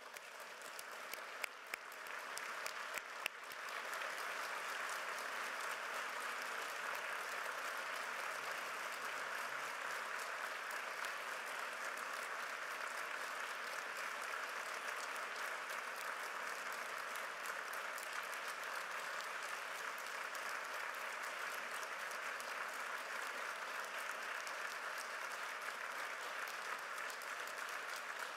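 Audience applauding: a few scattered claps that swell within about three seconds into steady applause.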